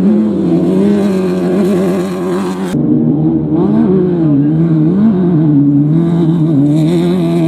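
Off-road race vehicle engines running, their pitch wavering up and down; the sound changes abruptly a little under three seconds in.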